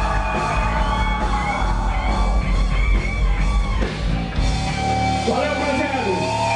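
Live rock band playing loud, with electric guitar, drums and yelled singing, heard from inside the crowd. About two-thirds of the way through, the heaviest low end drops away and the voice stands out more.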